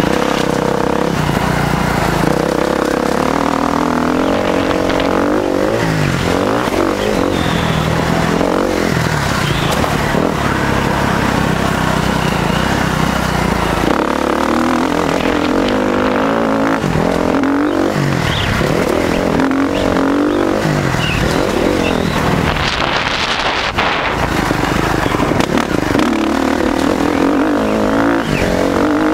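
KTM 350 SX-F motocross bike's single-cylinder four-stroke engine under way, revving up and dropping back again and again, heard from a camera mounted on the bike.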